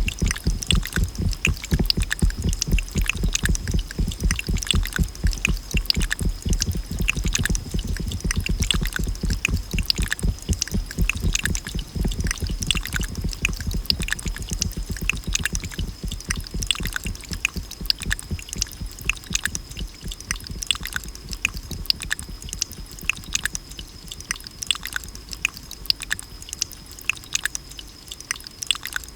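Water dripping fast, many drops in quick succession, over deep thuds that fade away over the second half, with a steady high-pitched tone throughout.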